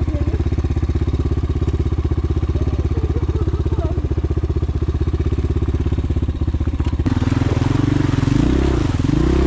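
Small petrol vehicle engine running steadily with a fast, even chug. About seven seconds in it is revved, its pitch rising and falling twice.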